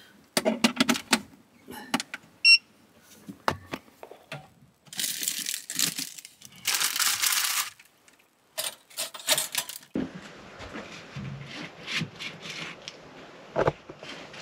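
Kitchen handling in a motorhome: clicks and knocks as a plug and a crumpet toaster are handled, a short electronic beep, then the plastic crumpet packet crinkling twice as crumpets are taken out and dropped into the toaster. Near the end come quieter scrapes and taps of crumpets being buttered.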